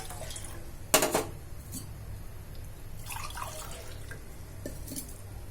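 Two glasses of water being poured into a cooking pot. There is one sharp clink of glass or vessel against the pot about a second in, and a few lighter clinks after it.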